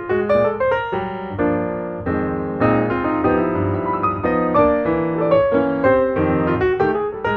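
Piano music: quick runs of notes with held chords in between.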